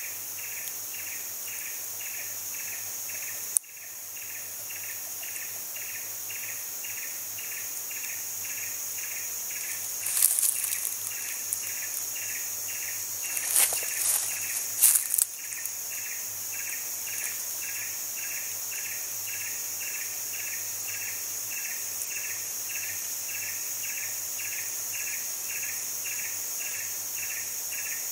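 Insects calling in a tropical forest: a steady high-pitched drone under a pulsing call that repeats about twice a second. A sharp click comes a few seconds in, and brief rustling bursts come about a third and a half of the way through.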